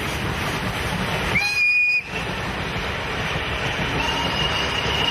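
Steam-hauled passenger train passing close by, the coaches rolling past with a steady rumble. A short steam whistle blast sounds about one and a half seconds in, and a fainter, longer whistle tone comes in near the end.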